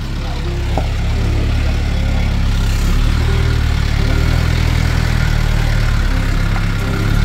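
Isuzu Trooper SUV's engine running steadily at close range, a low, even engine note.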